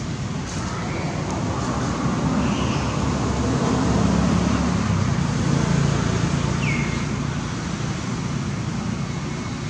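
Steady rumble of road traffic, swelling in the middle as a vehicle passes, with a short high falling squeak about two-thirds in.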